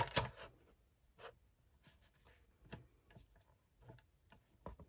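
Faint, scattered light ticks and rustles of a sheet of card being shifted and lined up by hand on a paper trimmer.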